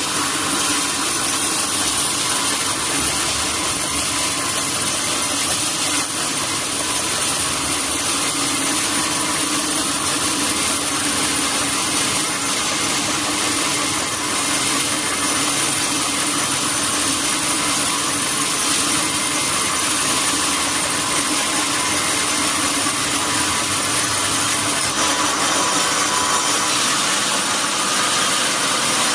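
Sawmill saw and its drive motor running steadily: a constant rushing machine noise with a thin high whine over it, unchanged throughout.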